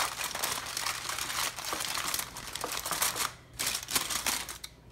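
Aluminium foil crinkling and crackling as hands press and crimp it down over a baking dish, going on and off with brief pauses.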